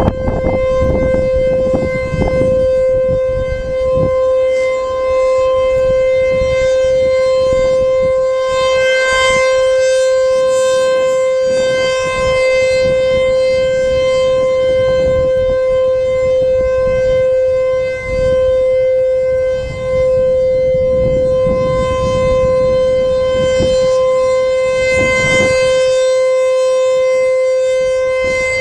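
ASC T-128 tornado siren sounding a loud, steady single tone during a test, swelling and brightening twice as it runs.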